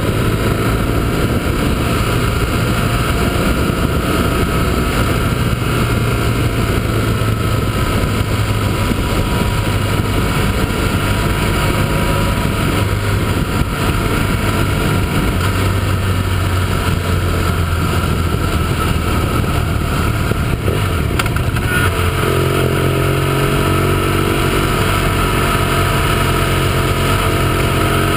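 Motorcycle engine running at town speed, its note wandering with the throttle and stepping higher about three-quarters of the way through, over steady wind rush.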